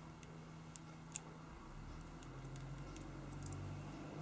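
A few faint, irregular small clicks of a precision Phillips screwdriver tip and a tiny screw against a smartphone's plastic midframe as the screw is turned in, one click a little louder about a second in.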